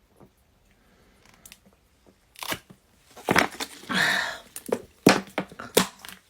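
A string of sharp crackling, crunching noises, with a longer rasping noise about four seconds in.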